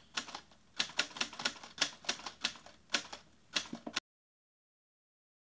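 Sharp clicks in an uneven run, about four or five a second in small groups, stopping about four seconds in, followed by dead silence.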